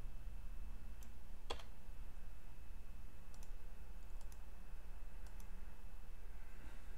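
A handful of scattered clicks from a computer keyboard and mouse, spread over several seconds with the loudest about a second and a half in, over a steady low hum.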